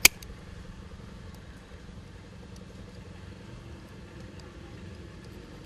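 Bypass pruning shears snip through a thin peach twig once with a sharp click, cutting a scion piece for grafting. After it there is only a steady low background rumble with a few faint ticks.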